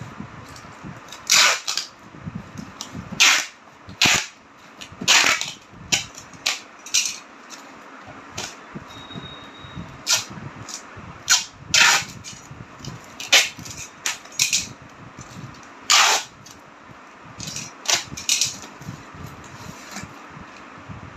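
Plastic packing tape pulled off its roll in short rips, about twenty at irregular spacing, as a cardboard box is taped shut.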